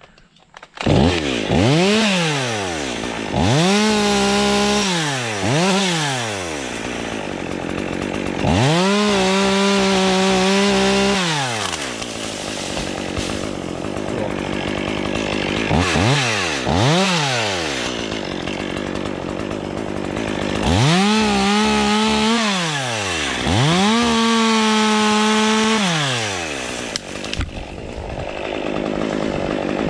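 Stihl 201 two-stroke chainsaw coming on about a second in, then revved about eight times, the engine pitch climbing and falling, with several revs held high for a second or more as if in a cut. The revving stops about three seconds before the end.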